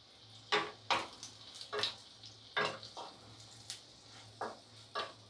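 Cauliflower fritters frying with a faint sizzle in oil in an iron kadai. A metal spatula clinks and scrapes against the pan about seven times as browned fritters are lifted out.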